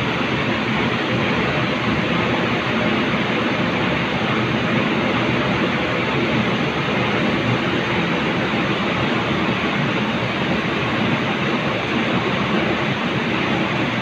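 Steady factory-floor background noise: an even mechanical rumble and hiss with no distinct knocks or clicks.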